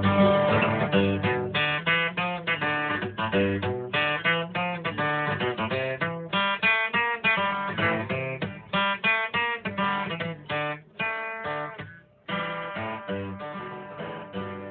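Background music: a guitar playing a run of plucked notes, with a short break about twelve seconds in.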